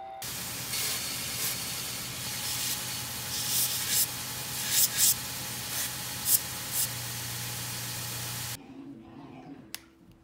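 Bench belt sander running, with a metal tool being ground against the abrasive belt: a steady hiss over the motor's hum, with several short, louder surges as the piece is pressed harder. It cuts off abruptly near the end.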